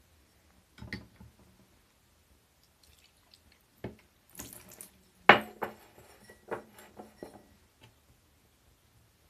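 Water splashing and dripping inside a washing machine drum during a cleaning cycle, in short, uneven bursts, with scattered clicks and one sharp knock about five seconds in.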